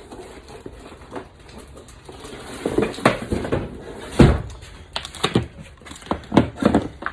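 Hard parts knocking and clattering as they are handled on a table: a run of irregular knocks, the loudest a single thump about four seconds in, then several sharp knocks near the end.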